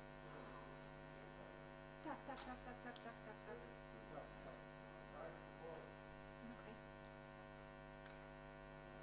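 Near silence filled by a steady mains hum made of several steady tones, with faint, brief snatches of voices about two seconds in and again a little later.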